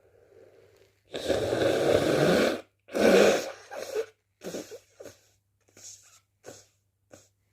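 A person sneezing: a long, loud burst about a second in, then a second, sharper sneeze just before three seconds, followed by several short, quieter breath sounds.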